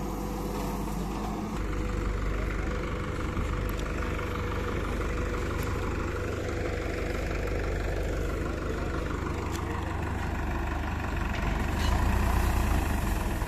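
Diesel engines of a backhoe loader and tractors running steadily. The engine note steps up about a second and a half in and grows louder again near the end, as the machine works harder.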